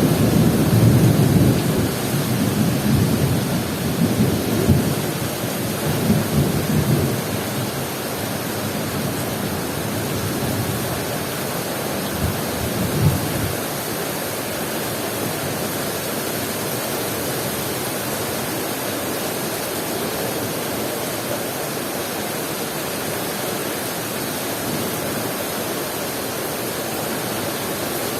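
Thunder rumbling and dying away over the first several seconds, with another short low rumble about twelve seconds in, over steady heavy rain.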